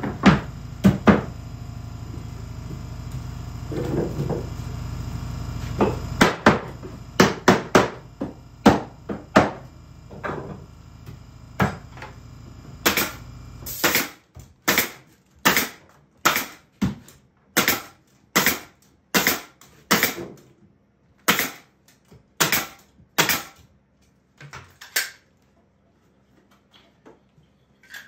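Pneumatic nail gun firing nails into the corners of a wooden hive box: sharp shots about every half second to a second, over twenty in all. A steady low hum runs under the first half and cuts off about halfway.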